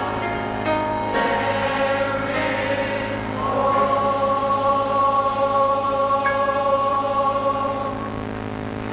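Large mixed choir singing a gospel song, moving into one long held chord about three and a half seconds in that ends near the end.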